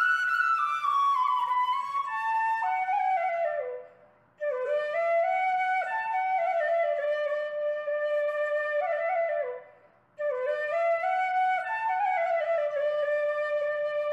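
Background music: a solo flute melody in three phrases, with short breaks about 4 and 10 seconds in.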